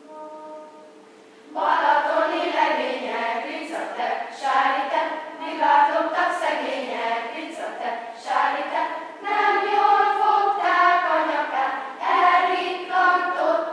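Children's choir singing. The voices come in together about a second and a half in after a short quiet pause, and the song goes on in phrases.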